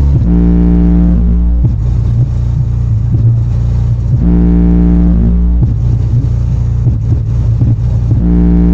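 Music played very loud through the Tornado 5600 sound rig, bass-heavy: an instrumental passage with sustained bass notes that come back about every four seconds over a steady low rumble.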